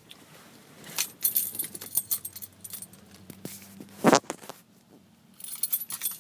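Car keys jangling and clicking inside the pickup's cab, with one louder thump about four seconds in.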